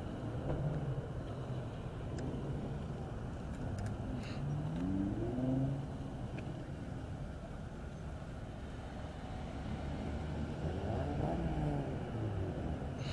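Cars driving slowly past, engines running, with one engine revving up about halfway through. Near the end a Hyundai Genesis Coupe passes close by.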